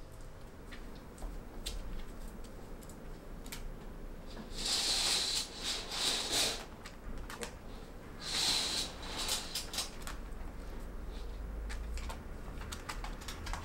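Fabric rustling in two bursts, one a little after four seconds in lasting about two seconds, the other shorter near the middle, with scattered light clicks and taps in between.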